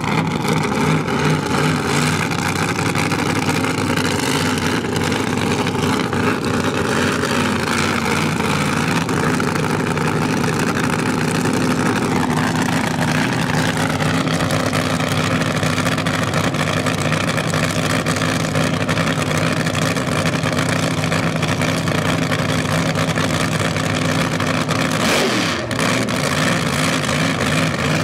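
Drag-race engine of a Chevy Vega drag car running steadily and loudly at idle. Around twelve seconds in, a higher tone glides down in pitch.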